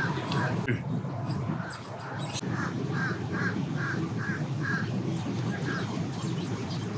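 A bird calling, a run of about six short calls at roughly two or three a second, with scattered calls before them, over a steady low rumble.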